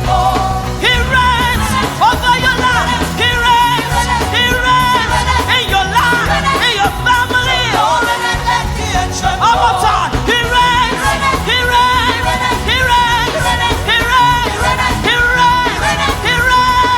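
Live upbeat praise band music: a steady driving drum and bass groove with a sung or wordless vocal line bending up and down over it.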